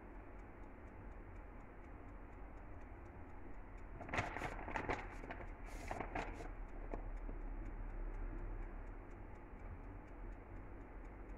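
Shredded mozzarella being handled and scattered by hand into a glass baking dish: a few brief rustles a little past the middle, over a low steady hum and a faint, even ticking.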